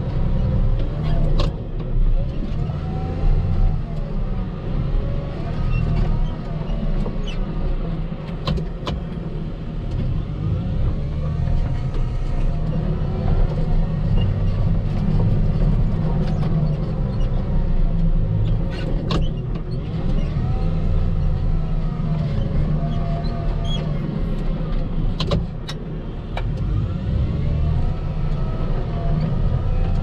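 Volvo L60H wheel loader's diesel engine working under load as the V-plow rams through snow drifts, its whine rising and falling every few seconds as the revs go up and down. A few sharp knocks sound through it.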